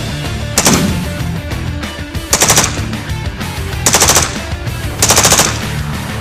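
K2C1 assault rifle firing four short bursts of automatic fire, each a quick run of shots lasting under half a second, about a second and a half apart. Background music plays underneath.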